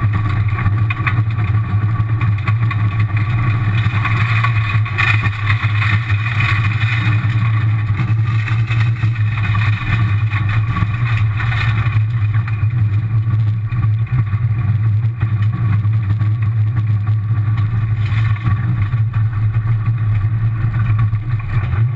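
Rally car's engine running at a fairly steady note, heard inside the stripped, caged cabin, over gravel and tyre noise from a loose-surface stage road. The gravel noise lessens about halfway through.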